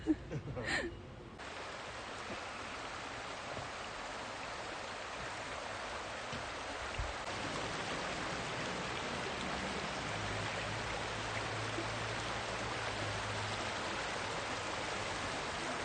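Shallow creek running over rocks: a steady rush of flowing water. A few brief, high sounds come in the first second.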